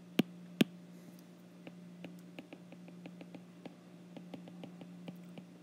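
Stylus tapping and ticking on a tablet's glass screen during handwriting: two sharp taps in the first second, then a run of fainter, irregular ticks as letters are written. A steady low hum runs underneath.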